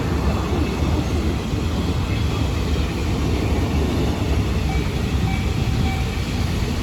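A train rolling past close by: a steady, loud low rumble of wheels and cars on the rails.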